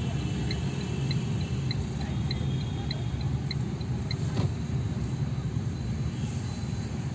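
Road noise inside a car cabin while driving slowly through city traffic: a steady low engine and tyre rumble. The turn indicator ticks about twice a second for the first three seconds or so as the car turns the corner.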